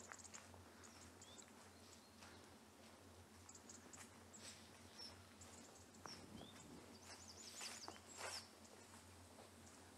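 Faint outdoor ambience of small birds chirping high up, with a quick wavering trill about three-quarters of the way through, and a few soft footsteps on a dirt path.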